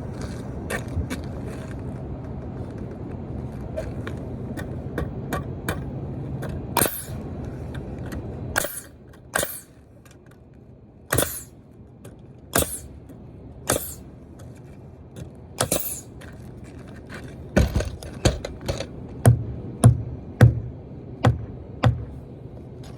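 Nail gun firing again and again: single shots a second or two apart, then a quicker run of about a dozen near the end. A steady low hum under the first shots stops about a third of the way in.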